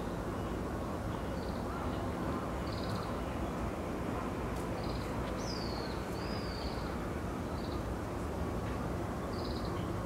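Small songbirds calling: a few short high chirps spaced a second or more apart, and about halfway through one longer whistle that drops in pitch and then wavers, over a steady low background rumble.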